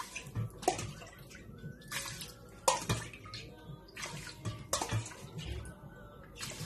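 Water poured from a cup into a rice cooker's inner pot over soaked rice. It comes in about six separate pours, one cupful after another.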